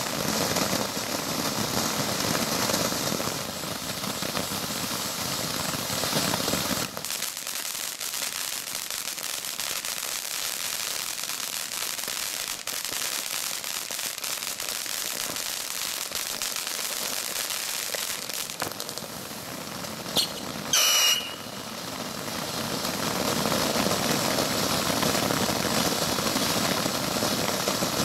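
Two firework fountains spraying sparks with a continuous hiss and occasional faint crackles. About two-thirds of the way through, a brief high whistle sounds for about a second.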